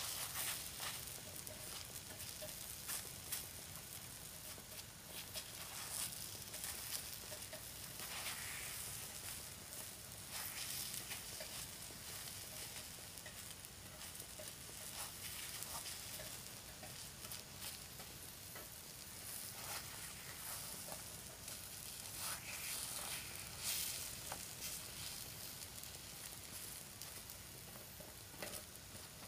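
Takoyaki batter sizzling on a takoyaki plate, a steady crackling hiss. Irregular light scrapes and taps come from a pick turning the balls in their wells.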